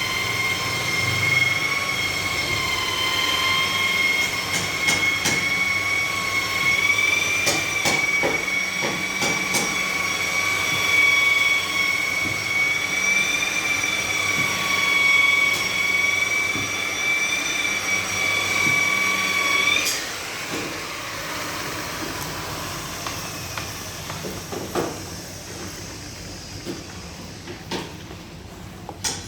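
Handheld power tool on car paintwork running with a steady high-pitched whine, cutting off about twenty seconds in, followed by quieter rubbing and a few clicks.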